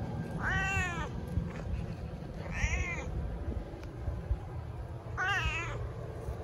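A domestic cat meowing three times, about two seconds apart, each meow short and rising then falling in pitch.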